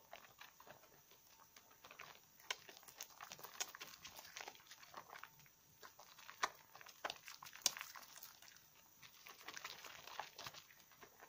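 Hands lathering and squeezing a wet bar of conifer soap in a bowl of soapy water and thick foam: soft squishing and crackling of lather with scattered wet clicks, a few sharper ones about two and a half, six and a half and seven and a half seconds in.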